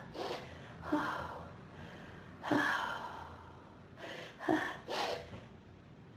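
A person's sharp gasping breaths and snorts, about six short bursts at irregular intervals, during an allergy sneezing fit.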